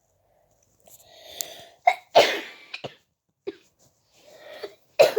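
A person coughing in a fit: a breath drawn in about a second in, then a string of harsh coughs, the loudest just after two seconds, and one more after another breath near the end.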